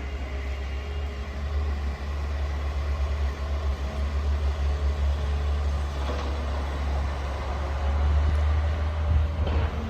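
A heavy engine running steadily, a strong low rumble under a haze of site noise, growing slightly louder in the second half.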